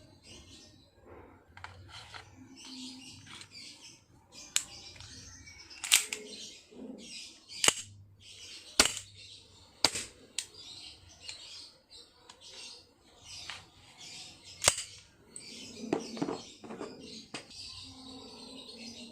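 Blowback M1911 airgun firing single shots: about six sharp cracks at irregular intervals, each with the snap of the slide cycling.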